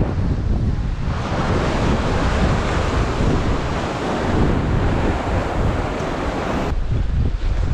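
Ocean surf washing against a rock ledge, with heavy wind rumbling on the microphone. A broad wash of surf swells about a second in and stops suddenly near the end.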